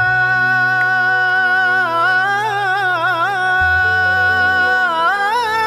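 Male voice singing a long, drawn-out 'ya dan' melisma in Yemeni style, first holding one note, then wavering in ornaments, over a sustained low bass drone that drops in pitch a little past halfway.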